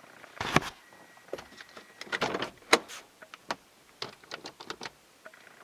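Handling noise: a string of short clicks, knocks and rustles, as of a phone or camera being moved about in the hand.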